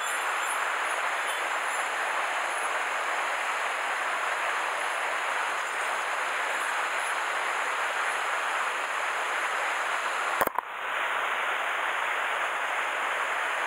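Steady rushing of a shallow mountain stream flowing over gravel, with one sharp click about ten seconds in, followed by a brief dropout.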